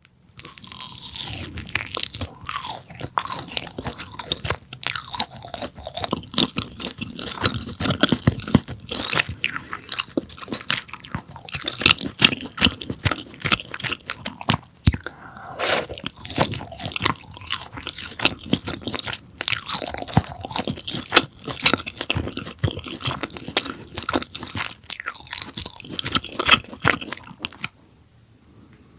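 Close-miked crunching and chewing of a crispy deep-fried pork cutlet (donkkaseu) in spicy sauce, with bites crackling almost without pause. The crunching dies away near the end.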